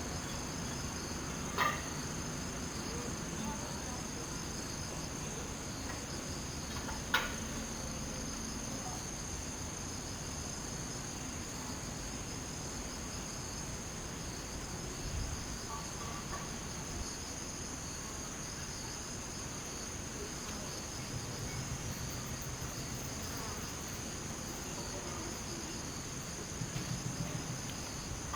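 Cicadas singing in a steady, high-pitched drone. A low buzz comes in briefly twice in the second half, the second time pulsing, fitting a hornet's wings. A couple of sharp clicks sound early on.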